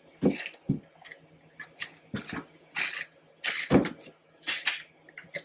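Handling noise from a 3D-printed plastic blaster: a series of short, irregular scrapes and light knocks as the parts are moved about.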